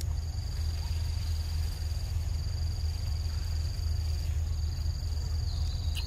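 Insects trilling steadily at a high, even pitch, over a low steady rumble.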